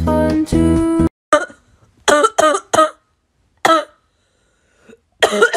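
A person's held-back coughs: a few short, strained coughs, then a pause, then a quick run of coughs near the end. Before them, about a second of guitar music with humming cuts off abruptly.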